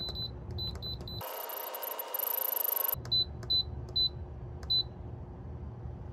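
Instant Pot Duo Plus control panel beeping once for each button press as the pressure-cook time is stepped down to 15 minutes: short high beeps in quick succession, broken by about two seconds of hiss in the middle.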